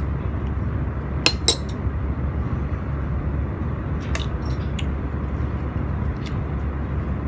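A spoon clinking twice against a ceramic rice bowl about a second in, followed by a few lighter clicks of spoon and chopsticks, over a steady low background hum.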